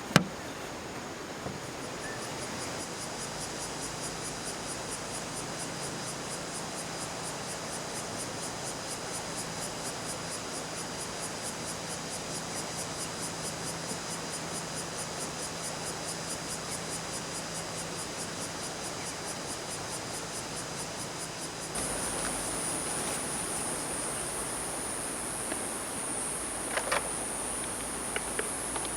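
Insects chirping in a steady, rapidly pulsing high chorus. About 22 s in it changes abruptly to a higher, louder trill, and a few faint clicks come near the end.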